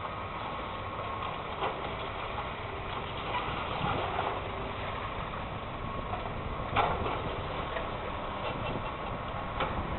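Hydraulic excavator running steadily as its demolition jaws break up a concrete apartment building, with scattered crunches and knocks of breaking material. The loudest crack comes about seven seconds in.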